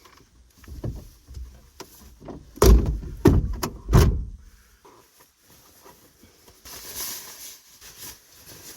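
A quick run of heavy thumps and knocks lasting about a second and a half, the kind of bumping made while moving about in a camper van. A short hiss follows near the end.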